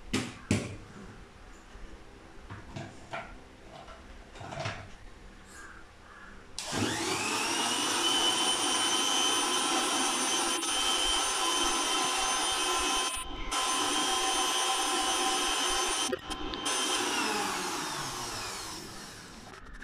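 Electric kitchen mixer grinder: a few clicks and knocks as the jar is set in place, then about six and a half seconds in the motor starts with a rising whine. It runs steadily, blending a green juice, with two brief breaks, and winds down with a falling whine near the end.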